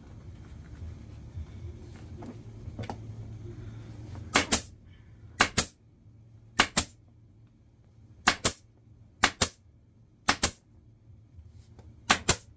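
Pneumatic upholstery staple gun firing seven times, roughly once a second from about four seconds in. Each shot is a sharp double snap as it drives staples through the seat cover into the seat base.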